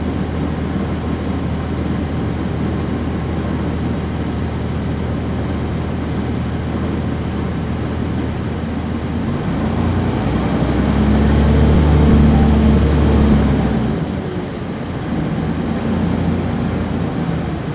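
Cummins ISC diesel engine of a 1999 NovaBus RTS transit bus running, heard from inside the bus. About ten seconds in the engine note grows louder, then falls back about fourteen seconds in.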